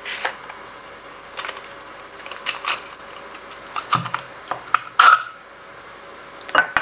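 Light clicks, taps and scrapes of metal parts being handled as the aluminium housing of a digital Baratron manometer is unscrewed with a hex key and its cover pulled off. A louder metal scrape comes about five seconds in.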